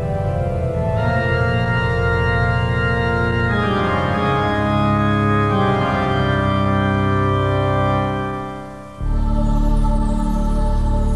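Dark electronic music: sustained, organ-like keyboard chords that shift several times, then fade out about eight seconds in. About a second later a new chord with a deep low drone cuts in abruptly.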